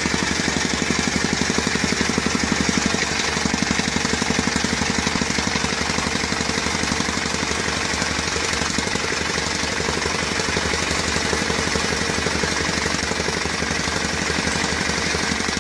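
Wacker BS60-2 jumping-jack rammer running, its two-stroke engine driving a rapid, steady pounding of the foot against the ground.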